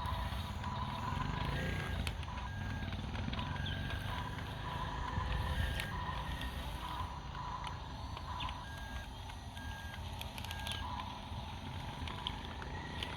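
Heavy construction machine's diesel engine running with a low rumble, while a reversing alarm beeps in repeated short pulses.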